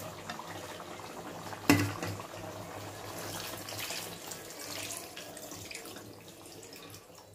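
Water being poured and splashing into a kitchen vessel, with one sharp knock about two seconds in, the loudest sound.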